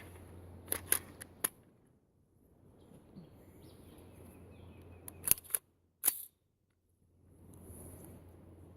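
A handful of short, sharp clicks: four about a second in, then three more between five and six seconds in, with quiet hum and pauses between.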